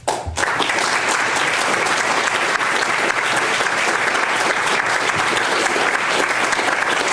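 Audience applauding: many hands clapping in a dense, steady patter that starts suddenly and holds at the same level.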